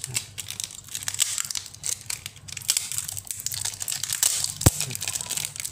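Clear plastic film crinkling and crackling irregularly as it is peeled and handled over a smartphone's battery, with one sharp knock near the end.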